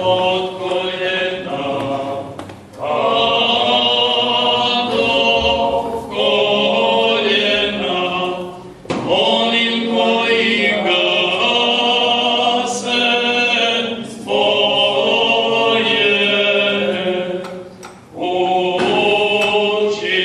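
Church congregation singing a hymn together, in sung lines of a few seconds each with short breaks between phrases.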